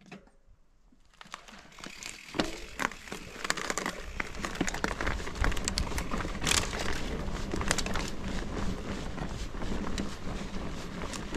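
Mountain bike rolling along a dirt trail: tyres crackling and clicking over the ground and debris, with rushing wind on the microphone. Near silent for about the first second, then growing louder and steady from about two seconds in as it picks up speed.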